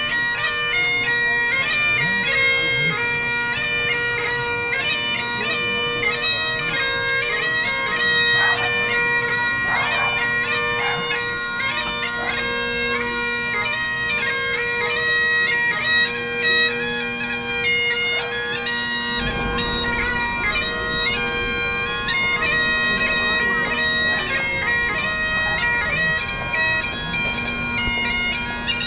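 Bagpipes playing a tune over their steady, unbroken drones.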